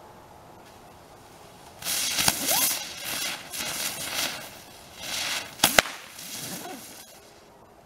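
Ground bloom spinner fireworks ignite and spin with a loud spraying hiss that sets in about two seconds in and dies away near the end. Over the hiss come a sharp crack, a brief rising whistle and, later, two quick cracks close together.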